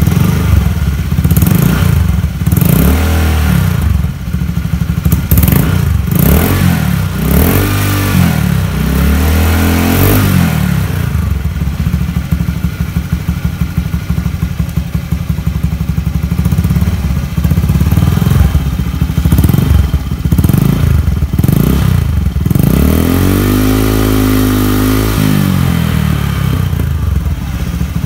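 Honda Vario 110 LED scooter's single-cylinder four-stroke engine running through a WRX standard-racing aftermarket exhaust, giving a bassy note. The throttle is blipped again and again, the revs rising and falling, and near the end it is held up for a couple of seconds before dropping back.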